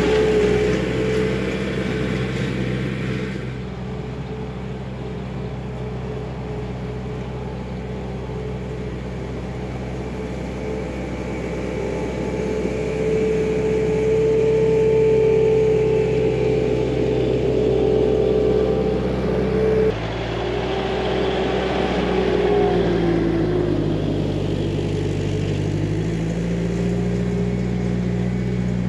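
Bobcat T300 compact track loader's diesel engine running steadily as the machine grades a dirt trail with a box-blade attachment. About twenty seconds in the sound changes abruptly, and the engine speed then dips and rises.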